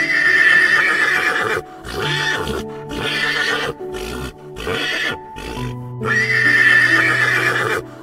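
Horse whinnying: one long whinny at the start and another about six seconds in, with shorter calls between, over background music.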